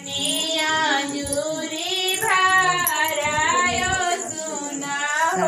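Women singing, with long held notes that waver in pitch.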